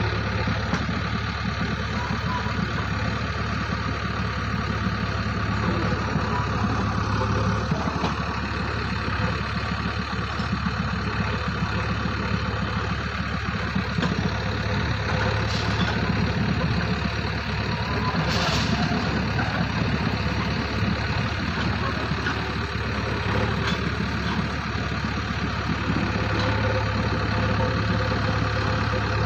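Heavy machinery's engine running steadily, with no change in pace, and a brief higher sound about two thirds of the way through.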